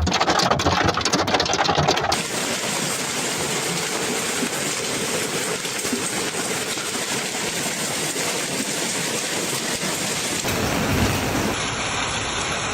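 Hailstorm: a dense rattle of hailstones striking hard surfaces for about two seconds, then a steady roar of hail and heavy rain. The sound changes abruptly twice near the end.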